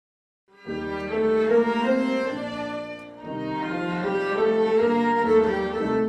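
Viola, cello and piano playing the instrumental opening of a classical song, the bowed strings in front. The music starts about half a second in and runs in two phrases, with a dip in loudness around the middle.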